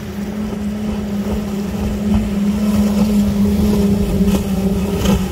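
Fast sport boat's bank of outboard motors running at speed in a steady drone, growing louder over the first couple of seconds as the boat passes close by.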